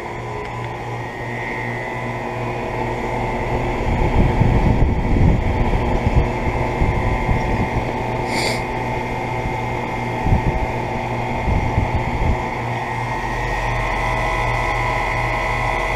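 Two central air conditioner outdoor condensing units (a York 2.5-ton and a Guardian 4-ton) running steadily, with compressor hum and condenser fan noise. Uneven low rumbles come and go through the middle stretch, and there is one brief sharp sound about halfway through.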